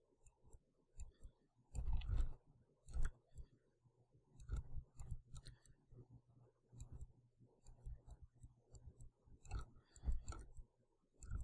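Faint, irregular computer-mouse clicks and desk handling noises during sculpting, with a few heavier knocks about two, three and ten seconds in.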